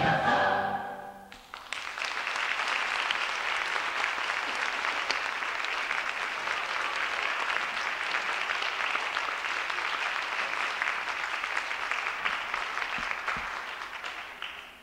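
A choir's song with accompaniment ends on a held final chord about a second and a half in. Then the audience applauds steadily, and the applause fades away near the end.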